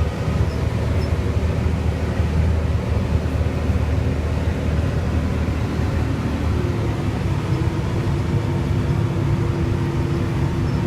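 John Deere 8400 tractor's six-cylinder diesel engine running steadily under load, pulling a field cultivator. About six and a half seconds in, a steady higher-pitched whine joins the engine sound and holds.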